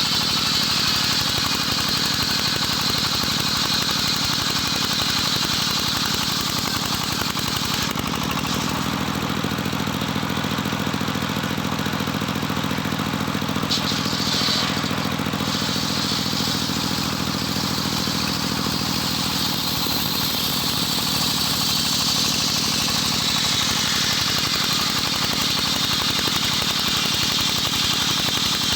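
Homemade engine-driven circular sawmill running steadily, its engine and spinning blade making a constant drone with a high whine; the whine fades for a stretch in the middle and returns near the end.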